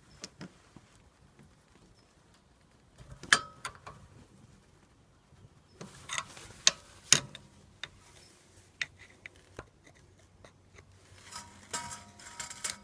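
Sharp metallic clinks and knocks in a few short clusters, some with a brief ring, as rear brake caliper parts and hand tools are handled and worked loose.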